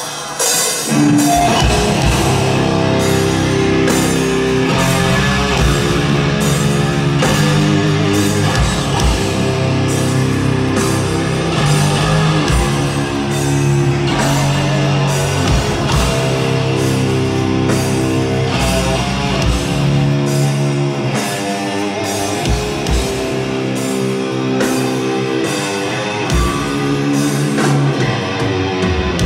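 Live death metal band playing at full volume, with distorted electric guitars, bass guitar and drum kit, kicking in about a second in.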